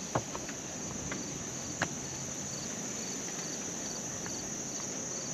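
Insect chorus: a steady high shrill with a regular chirp about twice a second, and two sharp knocks in the first two seconds.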